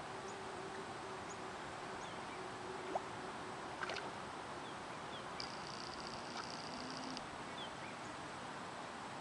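Quiet outdoor pond ambience: a steady soft hiss with scattered short bird chirps, and a buzzy high trill from about five to seven seconds in. A faint low hum runs through the first half, and there are two soft clicks around three and four seconds in.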